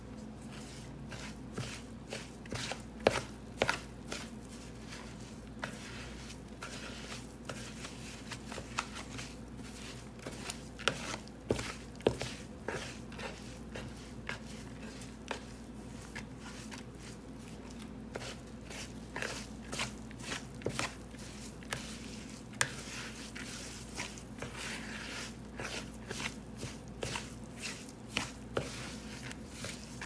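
Damp, fibrous soil from an expanded soil pellet being broken up by hand in a plastic bowl: an irregular run of soft crunches and crackles. There are a few sharper, louder clicks a few seconds in and again about a third of the way through.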